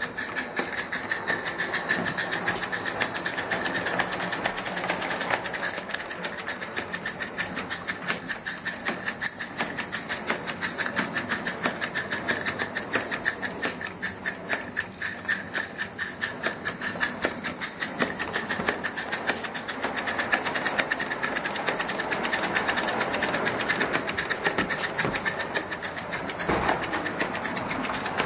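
Live-steam garden-scale model tank locomotive running along the track, its exhaust chuffing in a fast, even beat over a steady hiss.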